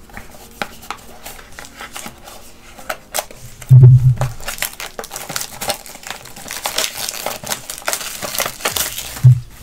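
Cardboard retail box and its packaging being opened and handled: crinkling, rustling and small clicks, with a loud low thump about four seconds in and another near the end.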